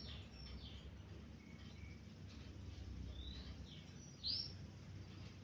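A kept sunbird (the Indonesian 'kolibri ninja') singing faintly in short, high chirps and whistles, with one louder upswept note about four seconds in, over a low steady hum. The song marks the bird back in voice after being sunned, bathed and fed.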